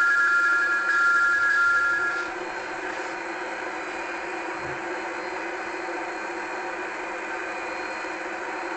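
Toy or model train engine's whistle: a high two-note whistle, broken briefly about a second in, that stops a little over two seconds in. A steady hiss and rumble of the engine running carries on under it and after it.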